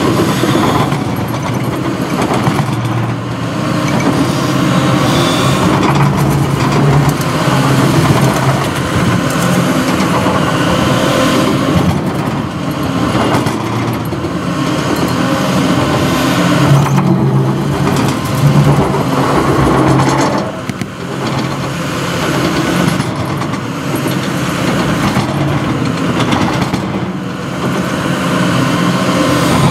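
CAT 330F hydraulic excavator's diesel engine and hydraulics working, the engine note rising and falling as the arm and bucket move, with a couple of louder knocks a little past the middle.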